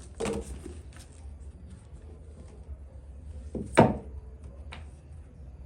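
Objects being handled and set down while arranging things on a table: a knock about a quarter second in, a louder thunk near four seconds, and a few light clicks, over a low steady hum.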